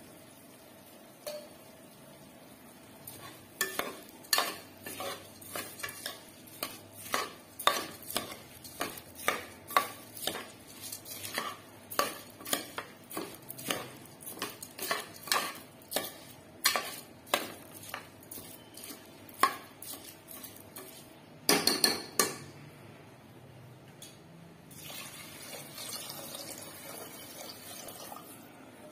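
Metal spoon stirring in a cooking pot, clinking against its sides about twice a second. A brief cluster of louder knocks comes a few seconds before a faint hiss near the end.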